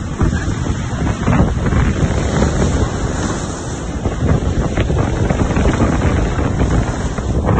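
Strong wind buffeting the microphone, with surf washing against the rocks below.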